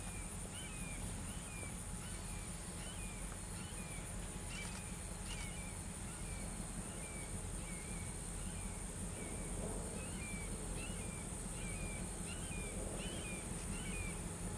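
A bird calling over and over, short falling chirps about twice a second, over a steady high-pitched drone like an insect chorus and a low steady rumble.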